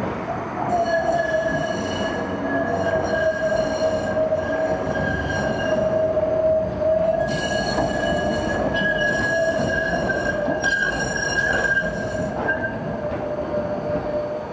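Tram wheels squealing on the rails: a loud, high-pitched squeal made of several steady tones. It sets in about a second in, drops and picks up again a few times, and dies away near the end.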